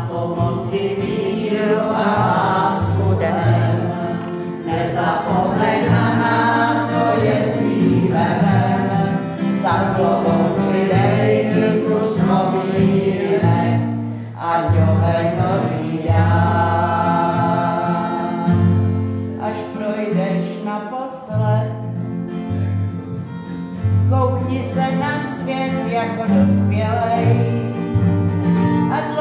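A woman singing a Czech song over instrumental accompaniment, with bass notes that change about once a second under her voice.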